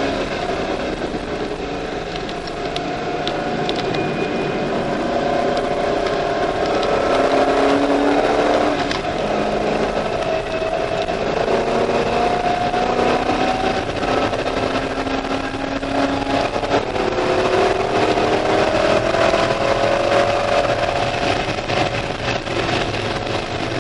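C5 Corvette Z06's LS6 V8 engine heard from inside the cabin at speed, its pitch climbing under acceleration several times and dropping back in between, over steady tyre and wind noise.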